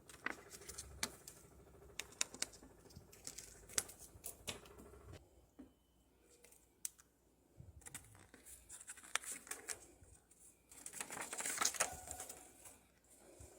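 Scattered sharp clicks, taps and scratches of a nanday conure's beak and feet working at small objects, with a denser scratchy rustle about eleven seconds in.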